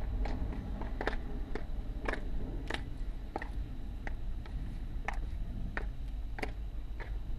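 Stiletto heels clicking on a paved sidewalk in a steady walking rhythm, a sharp tap about one and a half times a second, heard from inside a car.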